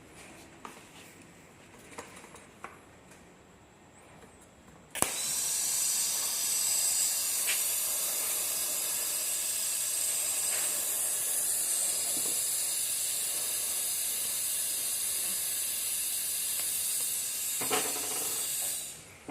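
Welding arc hissing steadily on a bolt-and-nut joint for the replacement clutch-pedal bolt, starting suddenly with a click about five seconds in and cutting off shortly before the end. Before it, only small clicks and handling sounds.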